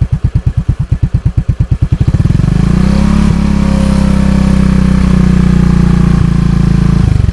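Italika AT110 LT motorcycle's 110 cc single-cylinder engine, first idling with an even putter. About two seconds in it is revved up and held steady at mid revs with a quite soft exhaust note from the twin-outlet muffler, then drops back to idle near the end.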